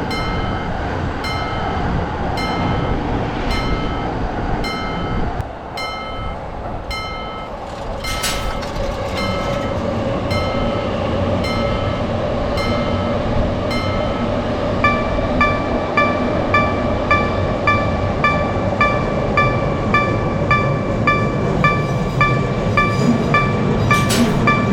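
Japanese level-crossing warning bell ringing in a steady ding-ding rhythm while a train runs through the crossing with a continuous rumble. About fifteen seconds in, the bell changes to a slightly lower, quicker ring.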